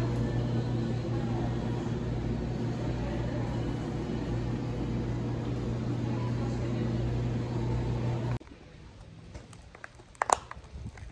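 Steady mechanical hum of building machinery with a low droning tone, cutting off abruptly about eight seconds in. It is followed by quieter outdoor ambience with one sharp knock from handling near the end.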